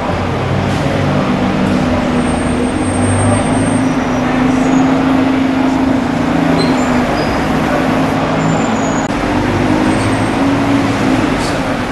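Road traffic: a motor vehicle engine running over steady road and tyre noise, its pitch shifting up and down a few times.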